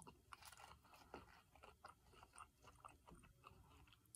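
Faint close-up chewing of food: a quiet, irregular run of small clicks and crunches.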